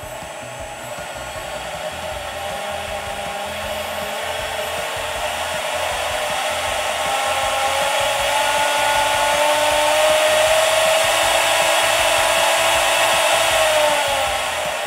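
CNC router's electric spindle motor spinning up, a whine with an airy hiss that rises in pitch and grows louder over about ten seconds as it climbs toward its top speed of around 24,000 RPM. It holds at speed briefly, then begins to drop in pitch and level near the end.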